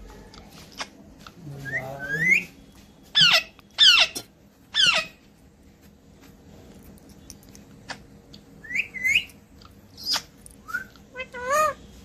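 Alexandrine parakeet calling in short bursts of sharp whistles and squawks. A rising whistle comes about two seconds in, three loud calls follow close together a second later, then softer chirps, and a quick run of calls comes near the end.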